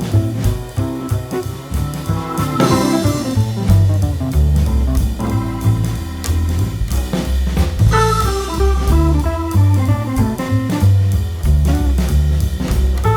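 Background music with a steady beat: drum kit, bass and guitar in a bluesy, jazzy style.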